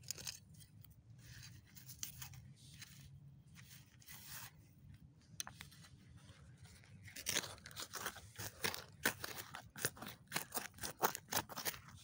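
Gloved hands scraping and raking through loose earth packed with broken glass. The first half holds soft rustling. From about seven seconds in comes a quick run of sharp crunches and scrapes.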